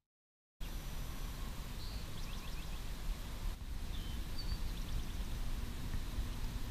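Open-air ambience over calm water: a steady low rumble and hiss, with a few short high bird chirps about two seconds in and again near the middle. It begins after half a second of silence.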